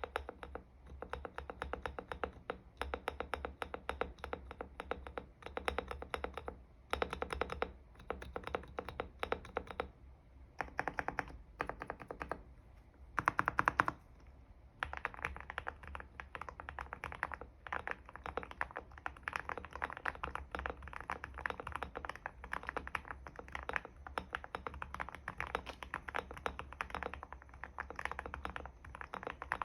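Typing on an Aula F75 mechanical keyboard with Blue Cheese switches, modded with tape, PE foam and its PET sheet removed: a steady run of keystroke clacks with a few short pauses. A dense, louder burst of rapid keystrokes comes a little before the middle.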